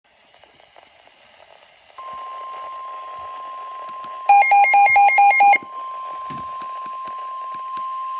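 NOAA Weather Radio 1050 Hz warning alarm tone heard through a weather radio receiver: a steady high tone that comes in over faint radio hiss about two seconds in, signalling that a warning is about to be read. Midway, a louder run of six quick electronic beeps sounds over the tone for about a second, followed by a few faint static clicks.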